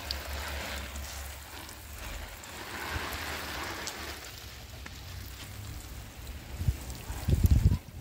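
Wind buffeting the phone's microphone while it is carried through the garden: a steady low rumble with a soft hiss, then a few loud low thumps near the end.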